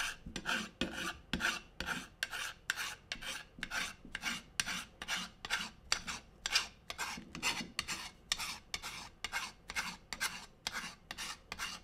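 Bastard file rasping back and forth across the steel tang of a Tojiro chef's knife in short, even strokes, about three a second. The tang is being filed down to fit the opening of a new wa handle.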